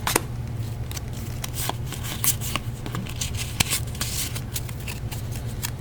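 Pokémon trading cards being handled and flipped through: a run of short, crisp flicks and rustles over a steady low hum.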